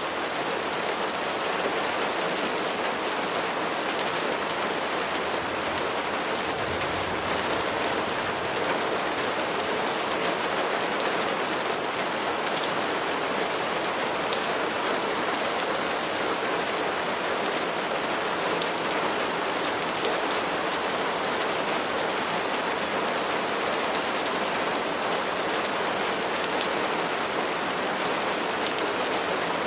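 Steady rain falling: an even hiss with many sharp ticks of individual drops striking a surface.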